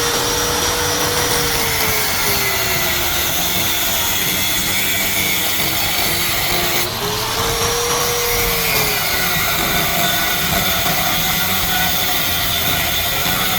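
A motor running loudly and steadily, its pitch sagging and then recovering twice, about two and seven seconds in.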